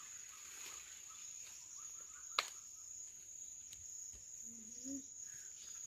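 Insects droning steadily at one high pitch in the forest trees, with a single sharp click about two and a half seconds in.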